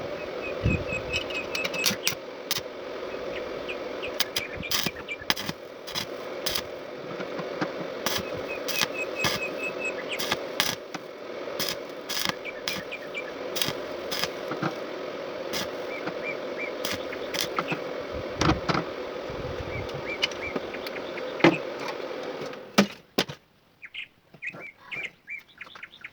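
Homemade wood lathe running with a steady hum and many scattered clicks and knocks, shutting off about 22 seconds in. Birds chirp in short trills several times.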